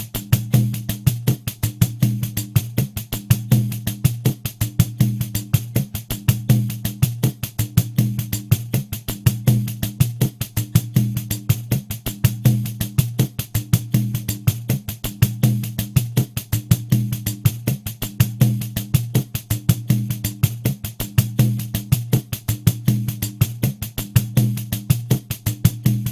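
Pandeiro playing a steady groove at 80 beats per minute. A rapid, even run of jingle strokes is punctuated on the beat by low, booming tones from the drum head.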